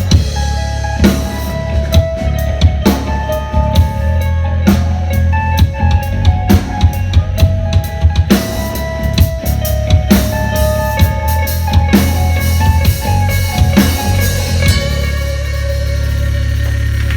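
Live band music: a drum-kit beat over heavy bass with held melodic notes on top. About fifteen seconds in the drums stop and a steady low bass tone holds as the track ends.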